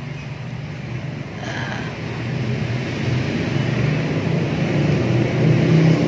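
A motor vehicle's engine running, its steady hum growing gradually louder.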